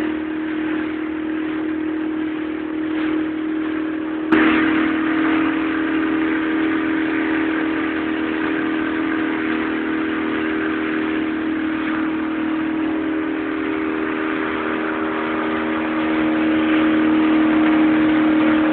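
A small motorboat's engine running at a steady pitch under way, with the rush of water along the hull; a sharp click about four seconds in.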